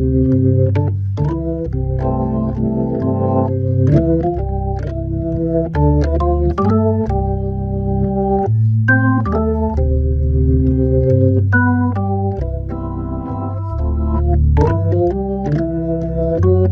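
Hammond B3 tonewheel organ playing a solo jazz waltz: sustained chords over a bass line, the harmony changing every second or two, with a short click at the start of each new chord.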